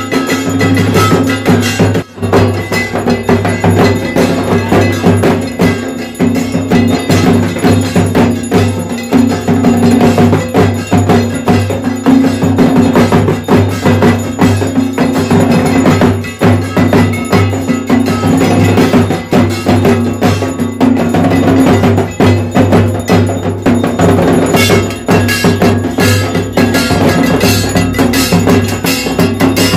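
Loud, continuous, fast clanging of bells and metal percussion with drumming, the ritual accompaniment to a Hindu evening aarti.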